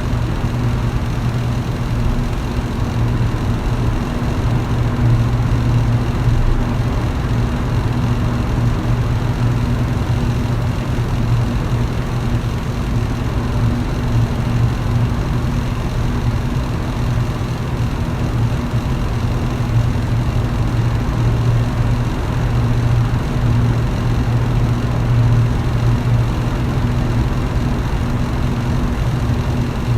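Electric fan running steadily, with a low motor hum over an even rush of air.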